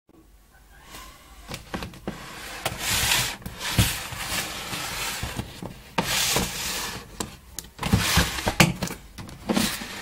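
Handling noise: irregular rustling and rubbing swells with scattered knocks and clicks, as a camera and a cardboard box are moved about.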